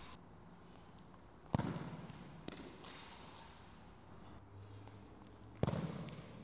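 A football struck hard twice, about four seconds apart, each sharp thud followed by the long echo of a large indoor sports hall.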